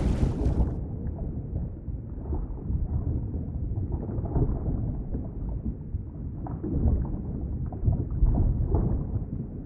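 Underwater ambience: a muffled, low rumbling wash of water with small scattered crackles. A brighter rushing hiss cuts off abruptly under a second in, leaving only the dull underwater sound.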